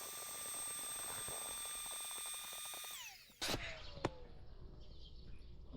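Cordless drill or screwdriver motor running at a steady high pitch, then winding down with falling pitch about three seconds in. After an abrupt change in the background comes a single sharp click about four seconds in.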